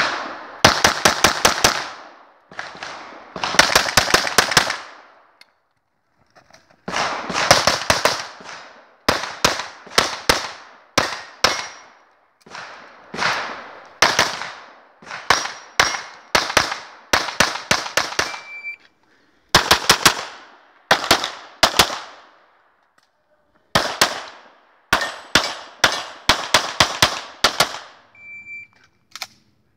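Pistol shots fired in fast pairs and short strings during an IPSC practical shooting stage, each crack with a short echo. Silent gaps of about a second between strings, as the shooter moves between shooting positions.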